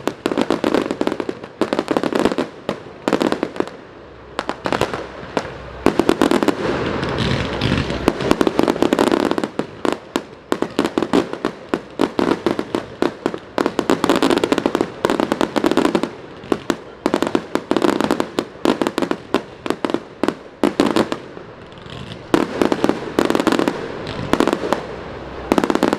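Fireworks going off continuously: rapid strings of firecracker bangs and crackling, with heavier booms every couple of seconds.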